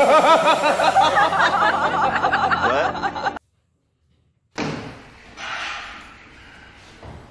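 A burst of laughter, loud and wavering, cut off abruptly about three and a half seconds in; after a second of dead silence comes faint noise.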